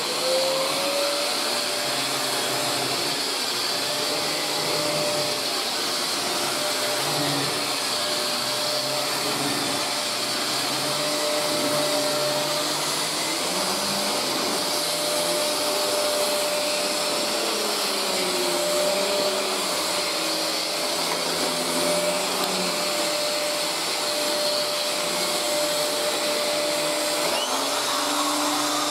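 Maytag Satellite canister vacuum cleaner with a 2000-watt motor, switching on and spinning up to a steady high whine within the first second, then running as its nozzle is pushed over carpet. A wavering lower hum sits under the whine, and a second, lower steady hum joins near the end.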